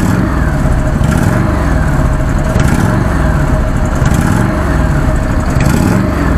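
Harley-Davidson V-twin motorcycle engine running steadily with a low, uneven pulse.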